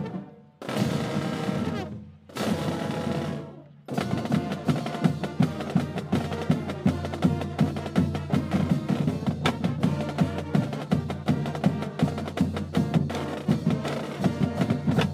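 Marching band of brass, saxophones, sousaphones and drums playing: two long held chords, then a fast tune with steady drum strokes from about four seconds in, cutting off at the end.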